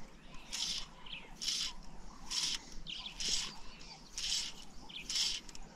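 A high, buzzy animal call repeated steadily about once a second, six times.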